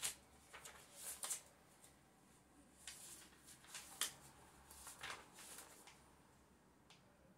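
Faint writing on paper: about a dozen short scratchy strokes at uneven intervals, dying away about a second before the end.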